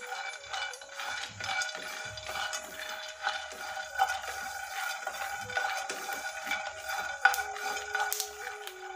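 Raw peanuts being stirred with a wooden spatula in a nonstick pan as they dry-roast: the nuts rattle and scrape against the pan in quick, irregular clicks, with one sharper click about seven seconds in. Soft background music with held notes plays underneath.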